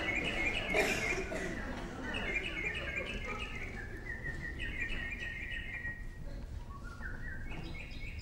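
Birdsong sound effect on a theatre stage: repeated short chirps and twitters, with a run of falling trills near the end.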